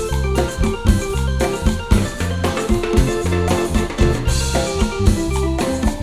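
Instrumental passage of a cumbia song played by a band: bass and drum kit keep a steady, repeating beat under bright melodic lines, with no singing.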